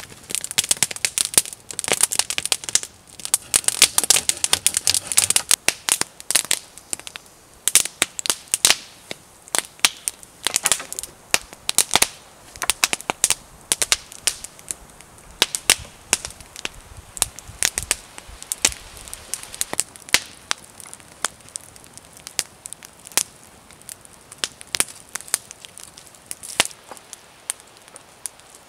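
Wood fire crackling, with irregular sharp pops and snaps. The crackling is densest for the first several seconds and then thins to scattered pops.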